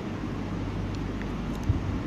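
Steady low hum with a background hiss, and a faint short knock near the end.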